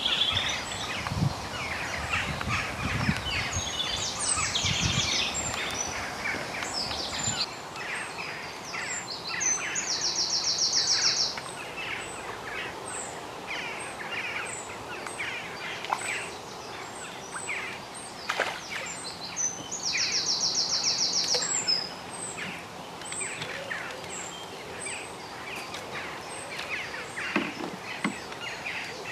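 Birds singing and chirping around a pond, many short calls overlapping, with a rapid buzzing trill twice, about ten seconds apart. Low knocks and rustling are heard in the first several seconds.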